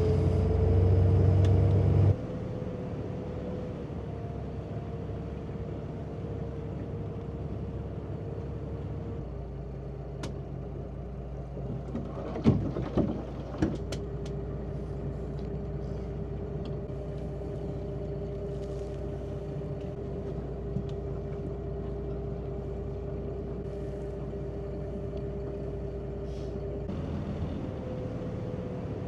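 Steady engine drone with a constant hum and low rumble. Its level and pitch shift abruptly a few times. A few sharp knocks come about twelve to fourteen seconds in.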